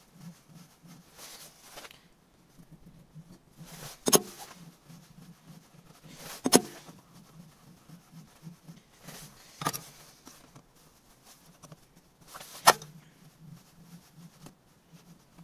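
Four short, sharp knocks, about three seconds apart, over a faint low hum.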